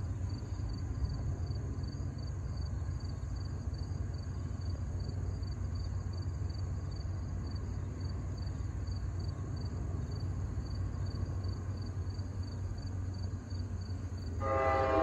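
Steady low rumble as a train approaches, with a faint, evenly pulsing high tone. Near the end, the diesel locomotive's multi-chime air horn begins to sound a loud chord.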